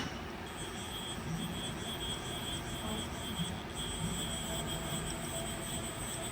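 Haas UMC-750 machining center's axis servo drives moving the table under hand jog: a quiet hum with a high whine that comes and goes as the axes start and stop.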